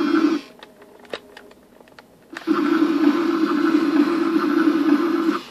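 The toy CAT excavator's small electric motor and gearbox whir steadily as it moves its boom and bucket. The whir stops just after the start, leaving a few light clicks for about two seconds, then runs again until shortly before the end.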